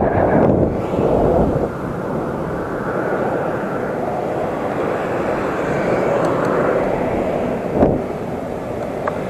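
Wind and road noise rushing over an action camera's microphone on a moving electric scooter, louder in the first second or so, then steady. A single thump about eight seconds in.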